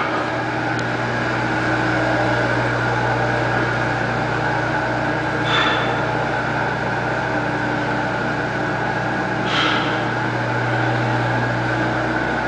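A steady mechanical hum, a low drone with a higher whine over it, with two brief swishes about five and a half and nine and a half seconds in.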